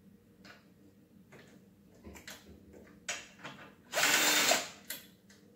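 Cordless drill-driver running for about half a second near the end, backing a screw out of a power wheelchair's gearbox housing. Before it come a few small clicks and knocks of the drill and parts being handled.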